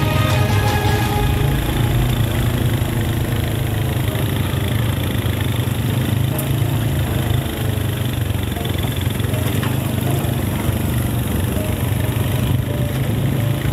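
Side-by-side UTV engines running steadily at low speed along a dirt track, a constant low drone.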